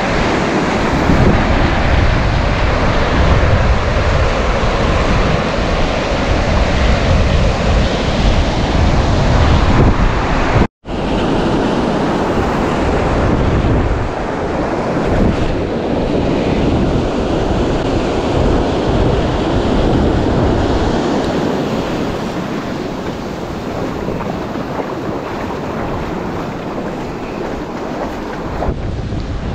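Surf washing on the shore with wind buffeting the microphone: a steady rushing noise, with the low wind rumble heavier in the first half. The sound cuts out completely for a split second about eleven seconds in.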